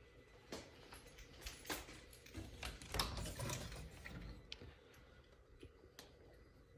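A run of clicks, knocks and light rattling as a louvered wooden closet door is opened, loudest about three seconds in, then a few scattered clicks.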